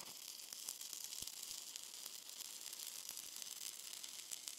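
Stick-welding arc from a 1/8-inch 7018 electrode burning on rusty, unprepped steel plate. It is a steady crackling sizzle with scattered pops, and it starts suddenly as the arc strikes.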